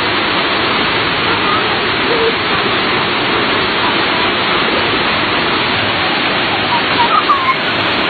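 Steady rush of water from a waterfall cascading over rocks, with faint voices of people bathing in the water.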